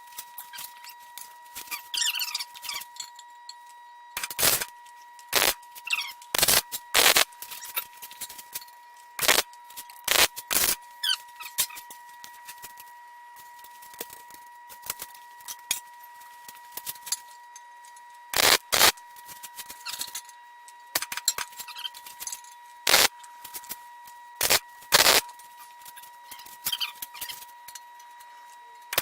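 MIG welder laying a series of short tack welds on steel: bursts of crackling arc a fraction of a second long, stopping and starting irregularly with pauses between.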